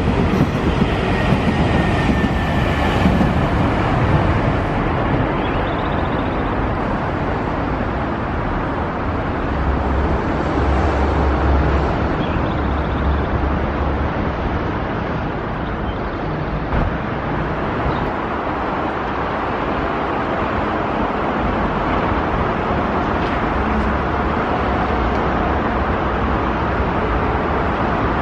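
Nankai electric trains running on the line: a limited-express train passing close by at the start, then the steady running noise of trains on the tracks as another approaches.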